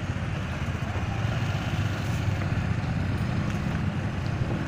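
Engines running steadily with a low rumble: a Hyundai wheeled excavator on the demolition site and a motorcycle close by.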